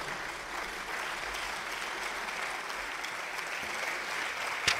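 Lawmakers applauding steadily in a large parliamentary chamber. A single sharp knock comes near the end.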